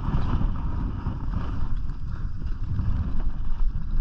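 Wind buffeting a GoPro microphone, a steady low rumble with a lighter hiss above it.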